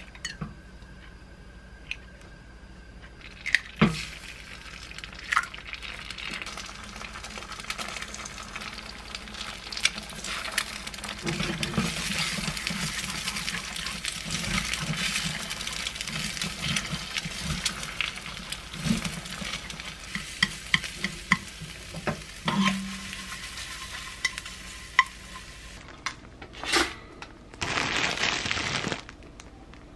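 Two eggs cracked into a small frying pan on a gas stove, then sizzling while wooden chopsticks stir and scrape them into scrambled eggs. Near the end there is a sharp click and a brief noisy burst.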